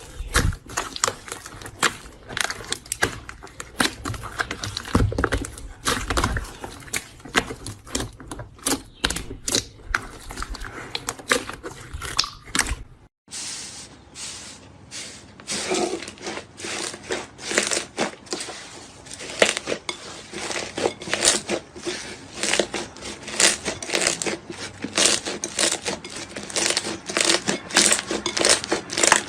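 Slime being squeezed, pressed and stretched by hand, giving dense, irregular crackling and popping clicks. The sound breaks off for an instant about halfway through, then goes on in a second take.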